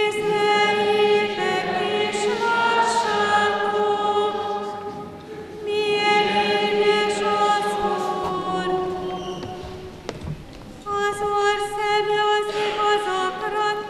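Choir singing a slow liturgical chant in a reverberant church, in three long held phrases with short breaks between them.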